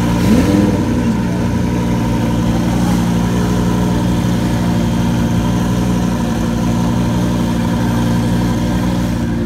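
Twin-turbocharged Lamborghini Huracán V10 idling steadily at a constant pitch. A brief rising-and-falling tone sounds about half a second in.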